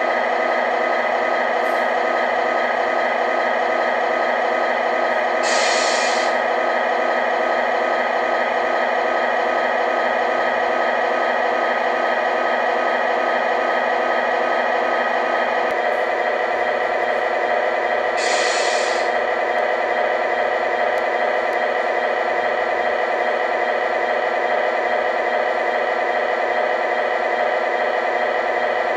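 Steady idling truck engine sound with two short air-brake hisses, about five and a half seconds and about eighteen seconds in. The engine note shifts slightly about sixteen seconds in.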